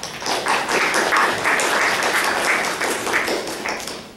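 Audience applauding: a burst of many hands clapping that starts at once and fades out near the end.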